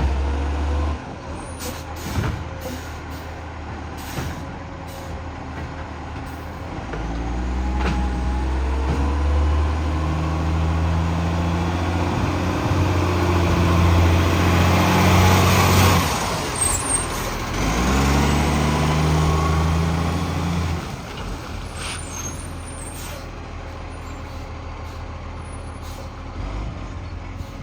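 Garbage truck engine with a bad exhaust leak, idling, then running up to higher revs and dropping back twice. A loud hiss of air comes in around the middle of the first run-up.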